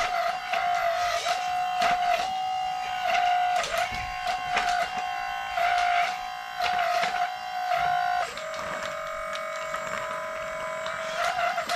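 Small electric motor of a radio-controlled construction model whining steadily, briefly dipping in pitch every second or so as it takes load, with clicking from the model's moving parts; about eight seconds in the whine settles a little lower and evens out.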